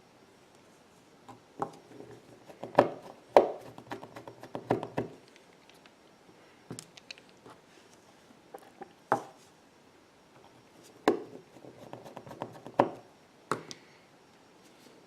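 Small tools and phone parts being handled during iPhone reassembly: scattered sharp clicks and taps in two busy clusters, with a single louder click between them.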